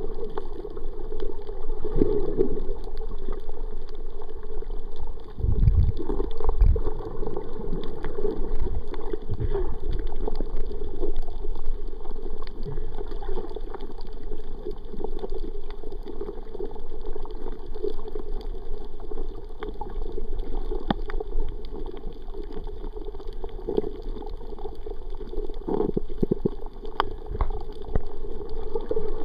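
Muffled water noise picked up by a camera held underwater: a steady low gurgling swish, with a few low thumps about six seconds in and again near the end.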